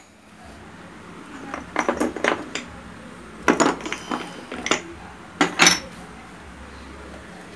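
Metal parts of a disassembled motorcycle cylinder head clinking and knocking as they are handled, in several short clusters of sharp clinks.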